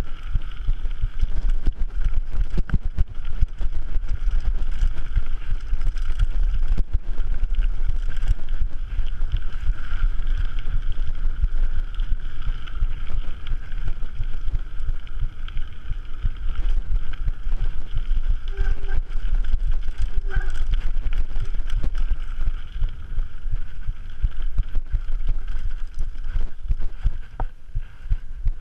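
Wind buffeting an action camera's microphone while a mountain bike rattles and clatters over a rough, rocky forest singletrack at speed, with constant knocks from the frame and components. The noise eases near the end as the bike rolls onto smooth tarmac.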